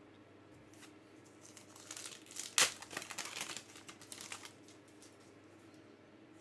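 Trading card pack wrapper being torn open and crinkled by hand: a run of sharp crackles starting about two seconds in and lasting some two and a half seconds, with the loudest tear about halfway through.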